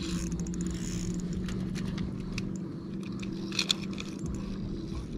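Light clicking and rattling, with two sharper clicks a little past halfway, over a steady low hum.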